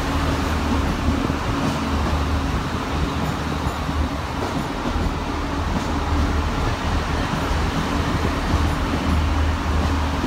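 Iarnród Éireann diesel multiple unit pulling out of the platform: a steady, deep rumble of its underfloor diesel engines with a low hum as the carriages move past.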